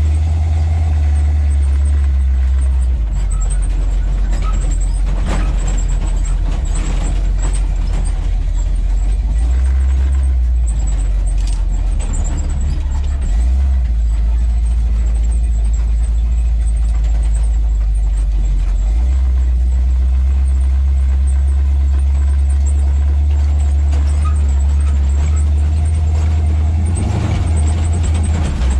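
Old 4x4 truck's engine and drivetrain running as it drives over rough ground, heard from inside the cab. A loud low drone shifts in pitch several times as the throttle and speed change.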